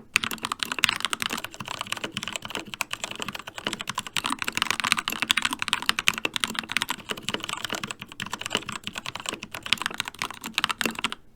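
Fast, continuous typing on a Keychron mechanical keyboard with Gateron switches, a dense run of key clacks.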